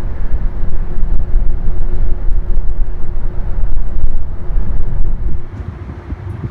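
Wind buffeting the microphone, a loud fluctuating rumble that eases about five seconds in, with a faint steady hum beneath it.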